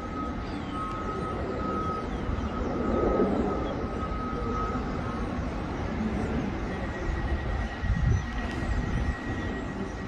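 Outdoor city and construction-site ambience: a steady low rumble of distant traffic and machinery. A faint, steady high whine runs through the first half, and a slightly higher one comes in near the end.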